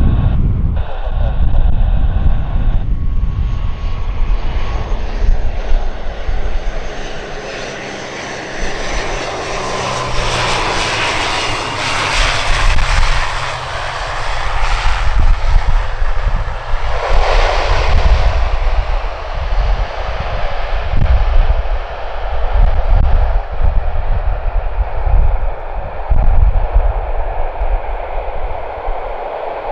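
Twin-turboprop ATR 72 airliner's engines and propellers running as it comes in to land and rolls along the runway. The roar grows loudest as it passes, about ten to fourteen seconds in, with a brief surge a few seconds later.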